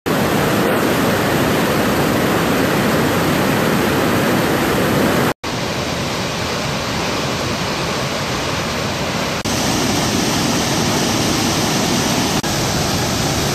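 Waterfalls and rapids on a river in spate, water pouring over rock ledges: a loud, steady rush of water. It cuts out for an instant about five seconds in and shifts slightly in tone twice later on.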